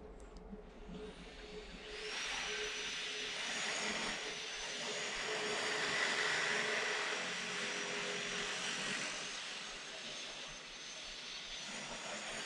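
Jet airplane passing overhead: a rushing noise with a faint high whine that swells up about two seconds in, peaks midway and slowly fades.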